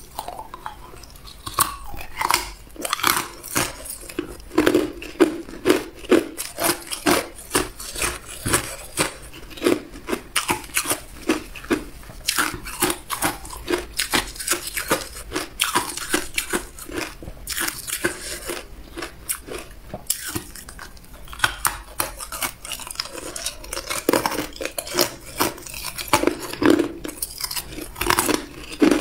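Hard ice being bitten and chewed: a run of sharp, brittle crunches, about two or three a second, as the ice cracks between the teeth.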